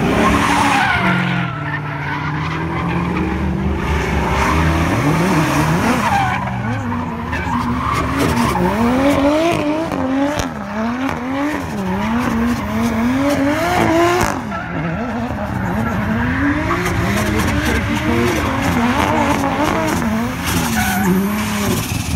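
A drift car's engine at high revs as the car passes close. Then a Nissan S13 drift car spins donuts: its engine revs up and down over and over, about once a second, with the tyres squealing and skidding.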